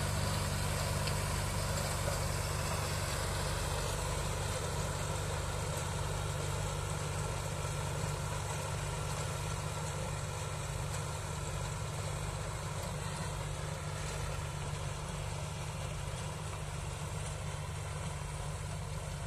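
Two diesel tractors, a John Deere 5050D and a Sonalika DI 47 RX, running steadily under load while their rotary tillers churn the soil: a continuous low engine drone that grows slowly fainter.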